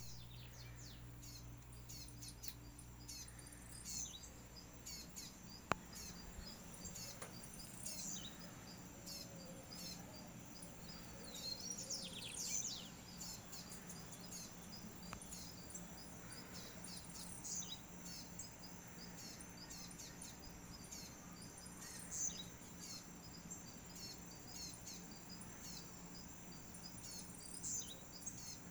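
A bird calling again and again, a short falling call every four to five seconds, over the steady high chirping of insects. One sharp click sounds about six seconds in.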